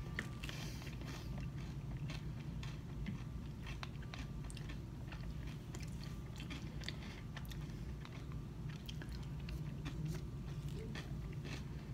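Close-up chewing of a spoonful of acai bowl with granola: many small scattered mouth clicks and crunches, over a steady low hum.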